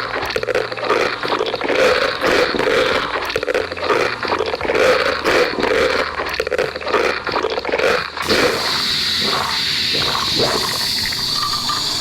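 Quick repeated scraping strokes, then about eight seconds in a steady sizzle of food frying in a pan begins.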